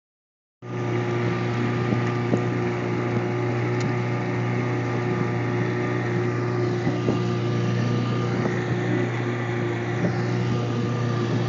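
Small boat's outboard motor running at a steady speed, a constant even hum.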